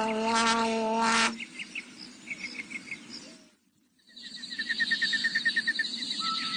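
Cartoon countryside ambience: rapid, repeated bird chirps over a high insect-like trill, faint at first, dropping out briefly near the middle, then returning louder. A long steady-pitched held tone cuts off about a second in.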